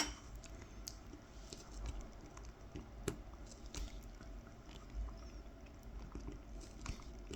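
Faint, scattered ticks and short scratches of a carving knife tip scoring fine lines into wild cherry wood for kolrosing.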